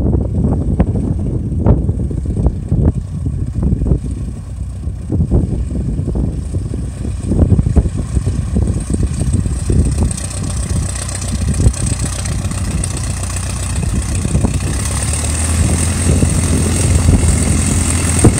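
de Havilland Chipmunk's four-cylinder piston engine and propeller running at low taxi power, getting louder and steadier as the aircraft comes close in the last few seconds.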